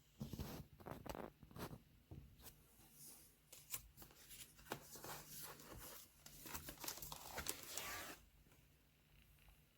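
Close handling noise: a string of sharp clicks and taps mixed with crinkly rustling, stopping about eight seconds in.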